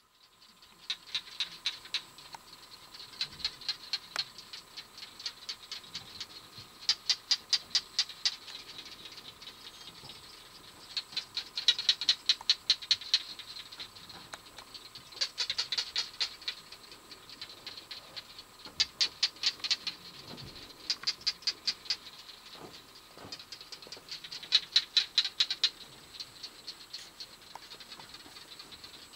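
A chorus of barking geckos calling: bouts of rapid, sharp clicks, about eight a second, each bout lasting around a second and coming every few seconds, some louder and some fainter, from several animals.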